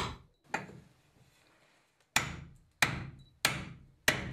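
A hatchet strikes a wooden wheel spoke fitted in a wheel hub six times. Two blows come close together, then after a pause of about a second and a half four more land at an even pace of roughly one and a half a second. Each is a sharp hit of steel on wood.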